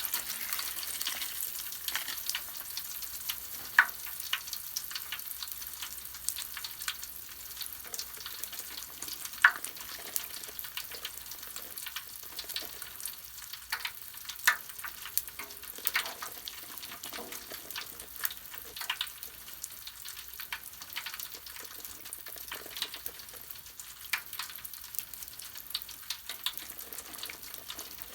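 Mr Bubble bubble bath foam crackling as its bubbles pop: a fine, continuous fizzing crackle with scattered sharper pops, a few of them louder.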